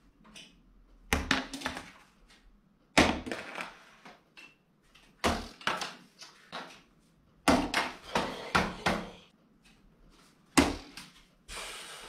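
Paper plates thrown one after another, landing on a tabletop and other plates. There are about six landings, each a short clatter of slaps and small bounces, roughly every two seconds.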